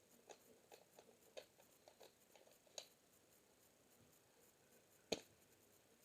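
Near silence with a scatter of faint light clicks and taps, then one sharp click about five seconds in.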